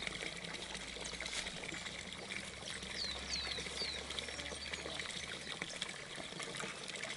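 Steady pouring, trickling water, with a few short, high, falling chirps about three seconds in.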